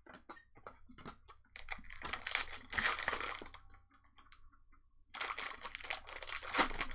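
Trading card pack wrappers crinkling and tearing as packs are ripped open, in two spells, one starting about a second and a half in and one about five seconds in, with light clicks and rustles of cards being handled between them.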